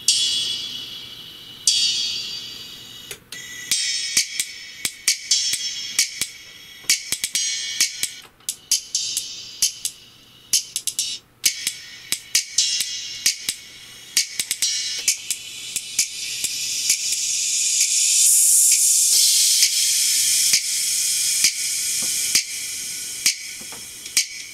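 Music played through a pair of JBL Shock Wave 4T titanium-diaphragm horn tweeters alone: only the treble comes through, crisp hi-hat and cymbal strikes and bright highs with no bass or midrange. It grows louder in the second half.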